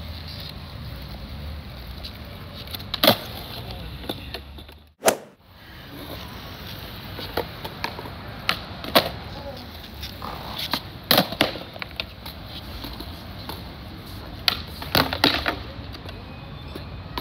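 Skateboard wheels rolling on a smooth stone floor, with sharp clacks of the board's tail popping and the deck and wheels slapping back down as tricks are tried, several times over.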